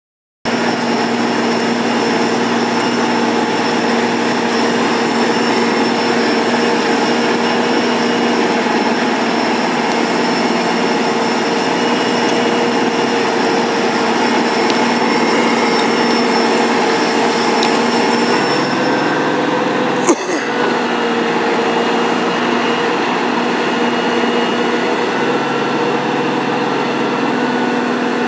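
Road planer (cold milling machine) running steadily, its diesel engine and rotating cutting drum milling off the asphalt road surface in a loud, continuous mechanical drone with steady hum tones. A single sharp knock about twenty seconds in.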